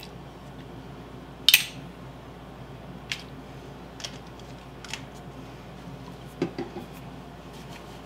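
A few scattered clinks and clicks of kitchen utensils against a glass mixing bowl, the loudest about one and a half seconds in, over a steady low hum.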